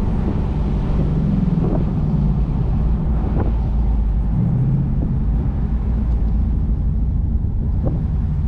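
2019 Ford Mustang GT's 5.0 L V8 engine and exhaust running in third gear at around 30 mph in Track drive mode, heard from the driver's seat with the roof down. The car slows near the end.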